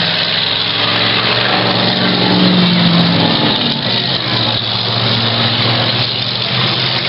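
Demolition derby car engines running together, a steady engine drone with a dense wash of noise over it.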